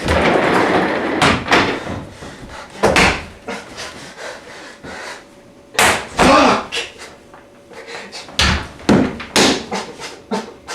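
A loud crash, then a run of separate wooden knocks, bangs and slams, with a shouted curse about six seconds in.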